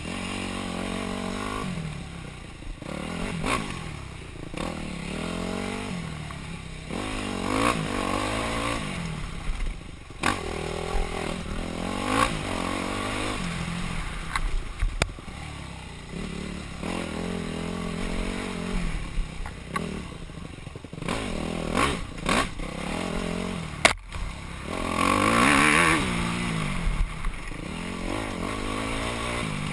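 Yamaha YZF250 four-stroke single-cylinder dirt bike engine being ridden hard, its revs rising and falling again and again under throttle and gear changes, with scattered knocks and clatter over rough ground. The loudest burst of throttle comes about five seconds before the end.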